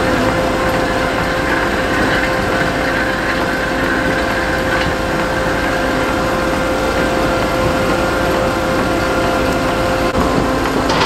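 Ropa Maus 5 beet cleaning loader at work: its engine runs steadily under load while beets tumble through the pickup and cleaning rollers, with a steady whine that drops out near the end.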